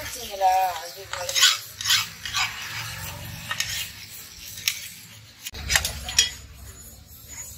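Steel file scraped along the edge of a billhook blade in irregular strokes, roughly one every half second to a second, metal rasping on metal. About six seconds in come two sharper clicks.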